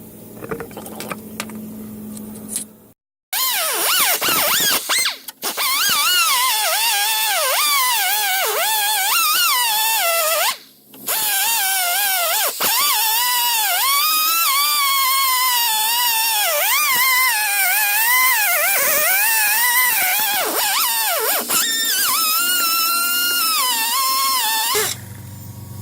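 Background music with a wavering melodic line and no bass, starting after about three seconds of low steady hum and cutting off shortly before the end.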